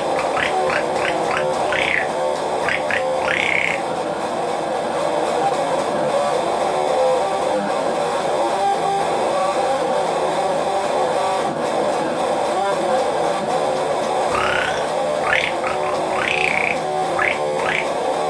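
Dungeon-synth music: a sustained droning chord bed with two runs of short, quick rising chirps, one at the start and one near the end.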